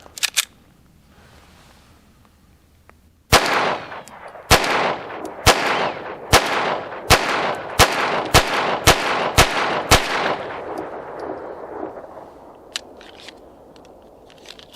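Walther P22 Q .22 LR pistol firing Federal Punch flat-point ammunition: ten shots about a second apart, coming a little quicker toward the end, each with a short echo. The pistol cycles the full magazine without a malfunction.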